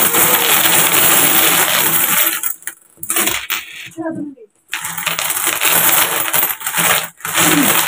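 A mass of coins sliding and clattering out of a tipped tin can onto a pile of coins on a table, with two brief lulls around the middle as the pour slows.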